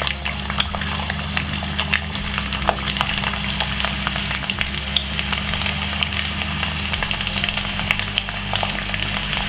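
Three garlic cloves frying in hot oil in a stainless steel pan: a steady sizzle with many small crackles and pops as the garlic flavours the oil for frying fish.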